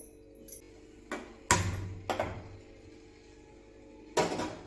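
Steel kitchen utensils knocking and clanking on the counter: four sharp knocks with short ringing tails, the loudest about a second and a half in and another near the end.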